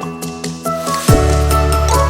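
Background music: pitched instrumental notes over a beat, with a deep bass entering about a second in.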